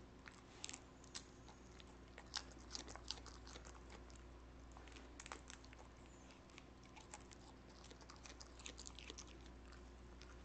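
Cardigan Welsh corgi chewing and biting lettuce leaves: faint, irregular crunches and clicks.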